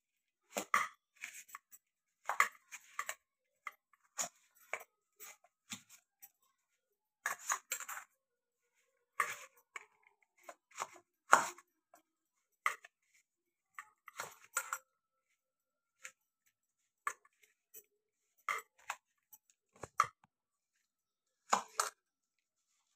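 A metal utensil stirring dry bhel puri mix of puffed rice and sev in a steel bowl: short irregular bursts of scraping, rustling and clinking against the bowl, with pauses between strokes.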